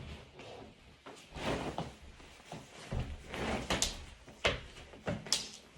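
Rustling and handling of thick winter clothing as it is sorted and pulled on, with a few short sharp clicks or knocks near the end.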